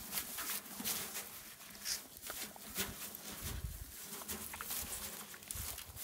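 A horse eating hay and straw out of a wheelbarrow: chewing, with its lips rustling through the dry stalks and irregular crisp crunches and crackles.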